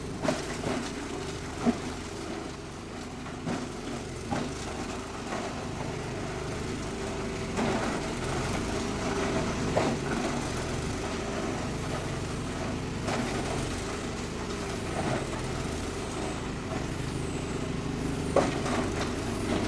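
Single-cylinder diesel engine running a chopper-grinder machine steadily, with scattered sharp knocks as young-coconut husk waste is shredded.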